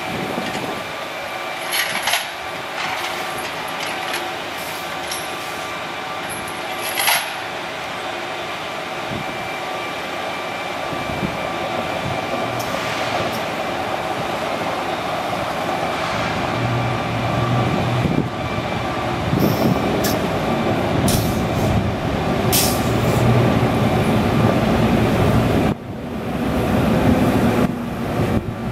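Freightliner M2 water truck running with its spray heads on, water hitting the gravel in a steady hiss over the engine sound. The engine gets louder in the second half as the truck comes closer, with a few brief sharp hisses along the way.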